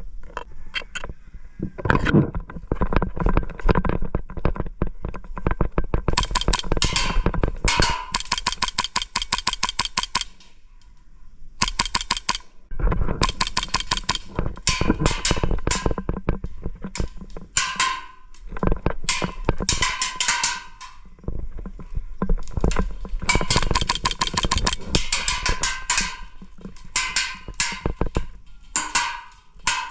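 Airsoft guns firing in long rapid-fire bursts, a fast rattle of shots with short pauses between bursts.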